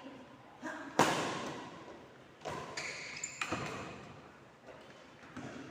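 Several sharp thumps that ring on in a large, echoing room. The loudest comes about a second in, and two more follow a second or two later.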